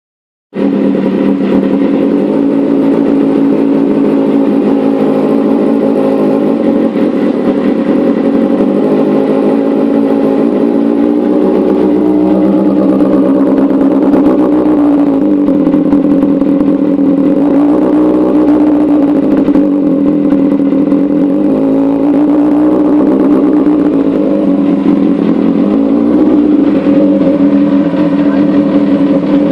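Kawasaki ZX-2R motorcycle engine running at high revs with a steady, high-pitched note. The revs dip and rise a little a few times around the middle.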